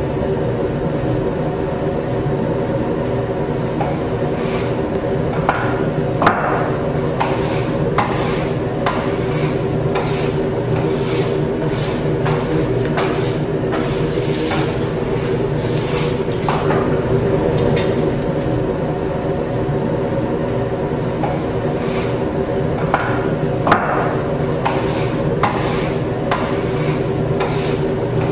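Steady hum of commercial bakery equipment, with repeated short metallic clicks and knocks from sheet pans and oven racks being handled.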